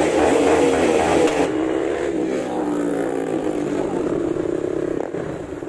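Several motorcycle engines running together as a group rides along, their engine notes wavering up and down with the throttle.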